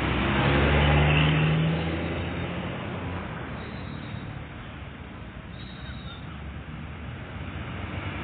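Bus engine passing close: a low drone that is loudest about a second in, then fades away steadily.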